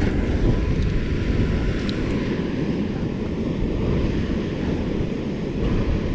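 Wind buffeting the microphone: a steady, uneven low rumble with no clear pitch.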